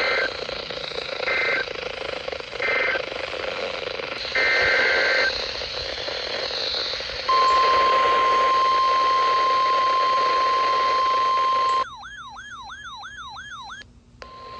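Emergency Alert System audio. First come three short two-pitch data-burst chirps, typical of the end-of-message code, then a longer data burst like the header of the next alert. Then the steady 1050 Hz NOAA Weather Radio warning tone sounds for about four and a half seconds, followed by about two seconds of a fast warbling tone sweeping up and down, and the steady tone starts again at the very end.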